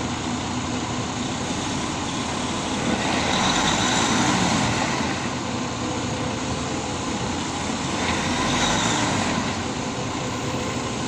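A heavy vehicle's engine running steadily, swelling louder twice, about three seconds in and again near eight seconds.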